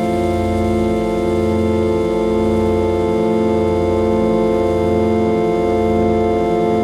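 741 Hz healing-frequency drone: a chord of steady, organ-like tones held without change, with a slow throb in the bass about once a second.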